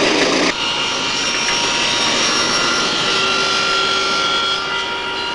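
Machine tools running in a workshop: a steady mechanical whirr with a hiss and a few held whining tones, changing in character about half a second in.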